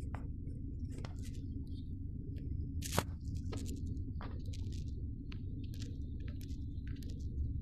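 Low steady rumble inside a car standing with its engine running, with scattered soft clicks and taps and one sharper click about three seconds in.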